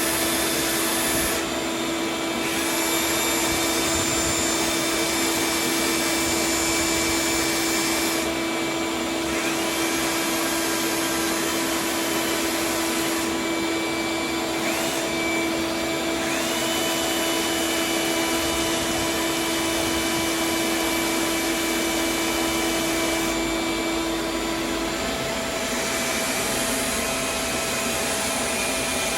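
Vacuum running steadily while 120-grit sandpaper is worked over a cured resin fill coat on a surfboard, smoothing it for the finish coat. A steady hum in the noise drops out near the end.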